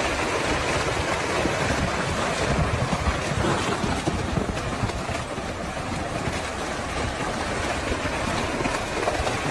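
Steady rushing noise of wind and moving water, with wind buffeting the microphone.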